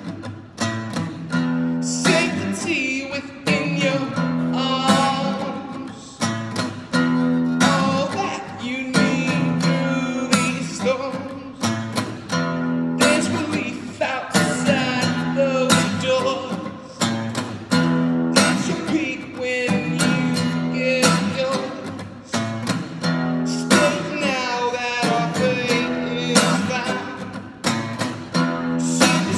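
A man singing to his own strummed acoustic guitar, with regular strokes across held chords.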